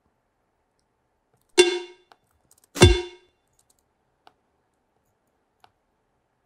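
A deep house cowbell one-shot sample played twice, about a second apart, each a sharp ringing hit with a steady pitch; the second hit lands with a kick drum's deep falling thud. The cowbell is being auditioned while it is retuned a few semitones down to the track's key, with faint mouse clicks between the hits.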